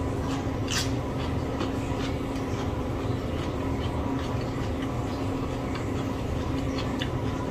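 A person chewing a mouthful of food, with a few faint mouth and crunch clicks, the strongest about a second in, over a steady low room hum.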